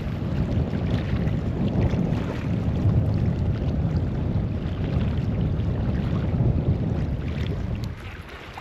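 Wind buffeting the microphone: a steady low rumble that eases near the end.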